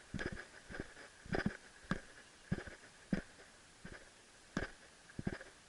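Footsteps of someone walking through a field: a regular crunching thump about every half second or so. A faint steady high-pitched hum runs underneath.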